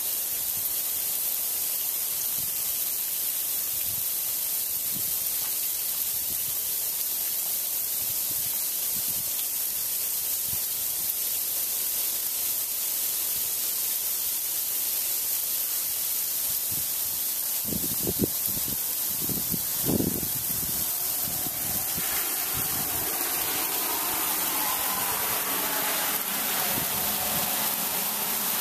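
Ice pellets (sleet) falling steadily, a continuous high hiss. Two dull thumps come about two-thirds of the way through, and in the last few seconds a car passes on the icy street.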